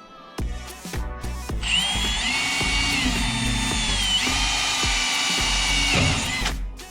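Power drill running for about five seconds while drilling pilot holes, its motor whine dipping in pitch briefly about halfway and again just before it stops. Background music with a steady beat runs underneath.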